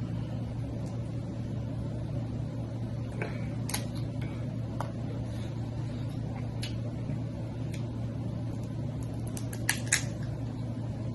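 Snow crab leg shells being cracked and picked apart by hand: scattered soft clicks and crunches, with a close pair of sharper cracks near the end, over a steady low hum. The eater finds the legs overcooked, too soft to give a loud crack.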